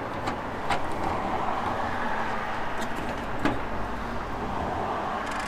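Steady rushing background noise that swells slightly and fades again, with a few light clicks as the small 8 mm bonnet-scoop bolts are worked loose by hand.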